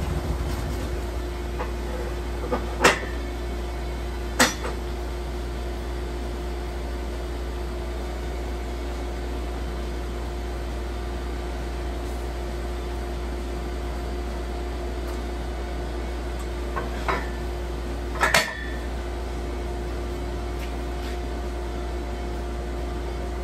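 Portable band sawmill's engine idling steadily with a low hum. A few sharp knocks come through, two about three and four and a half seconds in and a small cluster near the end.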